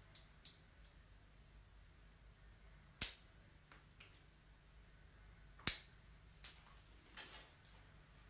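Sharp clicks and snaps from bonsai wire and hand tools being handled while branches are wired. The two loudest snaps come about three seconds and five and a half seconds in, with smaller clicks in between.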